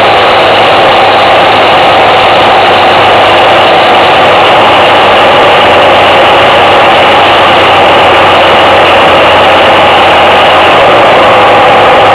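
Suzuki Freewind's single-cylinder four-stroke engine running steadily under way, heard loud with wind and road noise. About a second before the end the low engine note drops away, as when the rider eases off.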